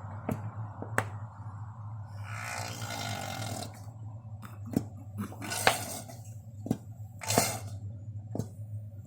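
80/90 gear oil being squeezed from a bottle into a pickup's rear differential, with short sputters and gurgles as air escapes and several sharp clicks, over a steady low hum.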